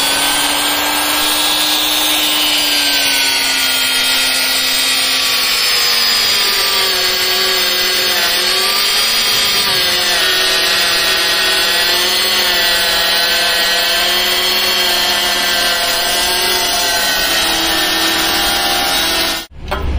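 Heavy hand-held electric drill boring through a steel truck chassis rail with a twist bit: a steady motor whine with the rasp of the bit cutting, its pitch sagging and recovering as the bit bites. It cuts off near the end.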